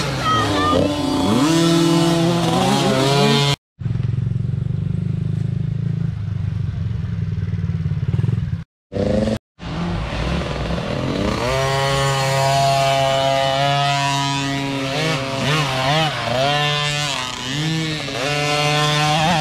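Small youth dirt bike engines revving and shifting as several bikes ride past, their pitch repeatedly climbing and dropping. The sound drops out briefly twice.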